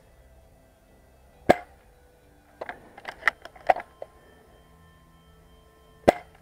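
Airsoft gunfire: two sharp single cracks about four and a half seconds apart, with a quick run of smaller snaps and taps between them.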